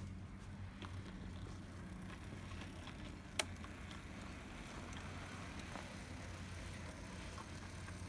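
HO-scale brass model of a Southern Pacific MC-4 2-8-8-2 cab-forward steam locomotive running along its track: a steady low hum from its motor and gearing, with the running noise of its wheels on the rails. Faint clicks come at irregular intervals, and one sharp click sounds about three and a half seconds in.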